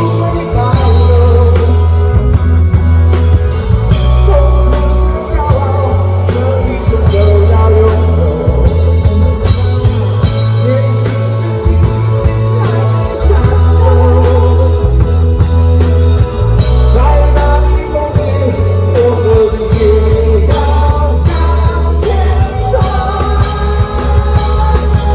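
Live rock band playing loud: heavy bass and drums under a singing voice and guitar.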